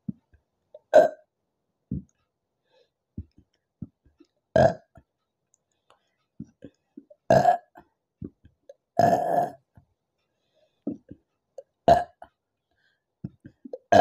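A woman burping repeatedly after drinking a carbonated apple soda: about five loud burps a couple of seconds apart, the one about nine seconds in the longest, with smaller, quieter sounds between them.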